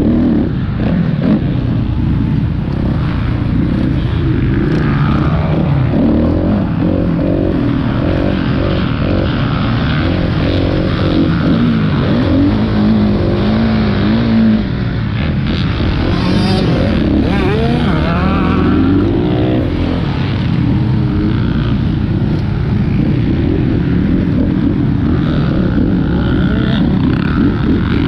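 Dirt bike engine heard from on board while riding a motocross track, its pitch rising and falling as the rider revs through the throttle, with other dirt bikes running close by.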